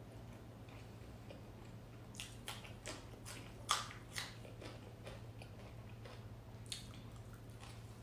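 Close-up mouth sounds of someone eating with her fingers: chewing and wet lip smacks, a cluster of sharp clicks from about two to four seconds in and another near seven seconds. A steady low hum runs underneath.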